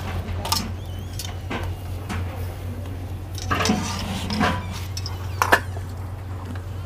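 Metal spatula knocking and scraping on an iron griddle (tawa) as parathas are turned and pressed: a handful of separate clinks, the sharpest about five and a half seconds in, over a steady low hum.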